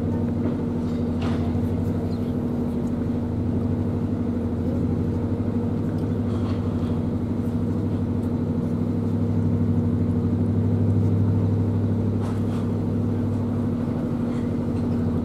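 A narrow boat's engine running steadily as the boat moves slowly along the canal: a low, even hum that swells slightly about ten seconds in.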